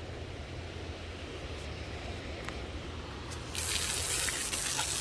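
A low steady hum, then about three and a half seconds in a loud, even spraying hiss starts suddenly and keeps going, with a few faint ticks in it.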